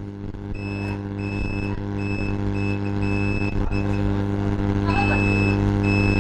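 Multimeter continuity buzzer beeping in broken stretches as the probes bridge the laptop's main 19-volt power rail and ground. The rail reads zero ohms, so the board is shorted. A steady low electrical hum runs underneath.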